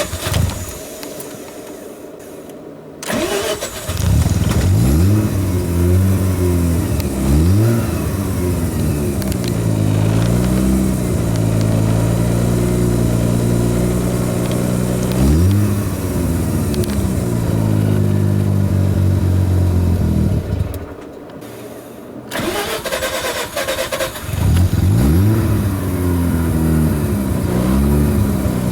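Mazda RX-7 rotary engine dying out, then starting again about three seconds in and running roughly, its revs repeatedly rising and dipping. It cuts out at about twenty seconds and is restarted a couple of seconds later, again running unevenly: the rough running of a hard-starting rotary.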